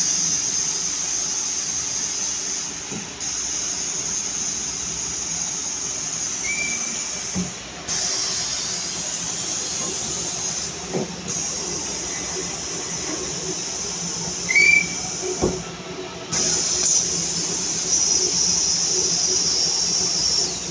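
Planetary mixer running with its paddles turning in a nearly empty pan: a steady motor and gear hum under a high hiss. Two short squeaks, the second the loudest, and a few light knocks.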